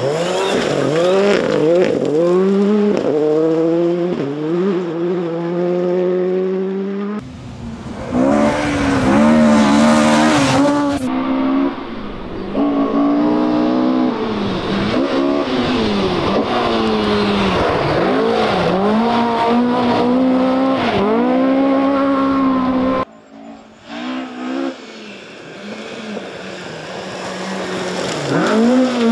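Rally car engines at full throttle on a loose gravel stage, revs climbing and dropping again and again through gear changes and lifts for corners. Several cars are heard in turn, each cut off abruptly. Near the end a Ford Escort rally car builds from quieter to loud as it approaches.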